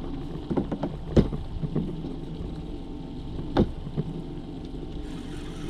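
Suzuki outboard motor running slowly at trolling speed, a steady low hum, with several sharp knocks over it, the loudest about a second in and again past three and a half seconds.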